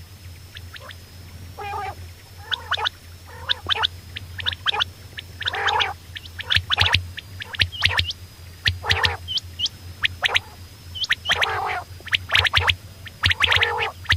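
Quail calling: quick clusters of short, sharp chirps, broken by a few longer raspy, bubbling calls and some small hooked chirps.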